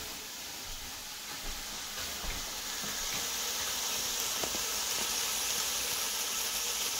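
Chopped onion, garlic, shallot, hot pepper and herbs sizzling in oil in a large steel pot, stirred with a wooden spoon. A steady hiss that grows a little louder about three seconds in.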